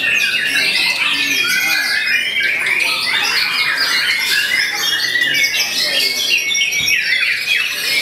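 White-rumped shamas singing loudly at once in their cages: a dense, unbroken stream of overlapping whistles, chirps and rapid trills.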